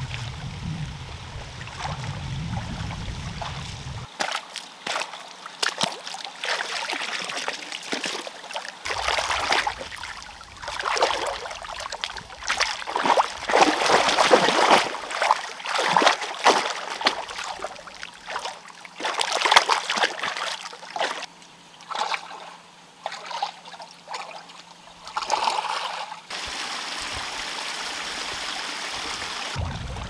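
Water splashing and sloshing around a person's legs as they wade through a shallow, muddy pond, in irregular splashes that are heaviest around the middle.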